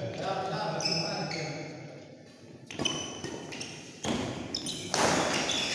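Badminton rally: three sharp racket strikes on the shuttlecock in the second half, the last the loudest, with short high squeaks of shoes on the court floor early on and voices in the hall.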